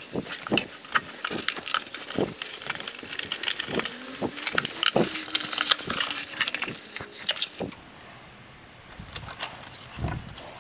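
Cardboard mailer box handled and opened by hand: a busy run of scraping, tapping and crackling from the flaps and the packing inside, which goes quieter about eight seconds in, leaving a few soft knocks.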